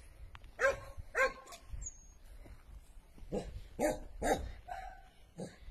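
A dog barking, about six short barks with pauses between them.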